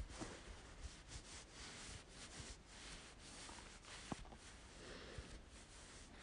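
Faint, soft rustling and rubbing, like cloth or a hand brushing close to the microphone, with a faint click a little past four seconds.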